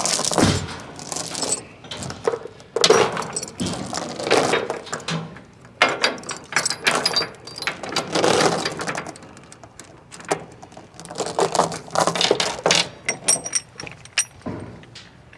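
Steel tie-down chain rattling and clinking in repeated bursts as it is pulled and laid out across a wooden trailer deck, with its hooks and a ratchet chain binder clanking against the links as the binder is hooked on.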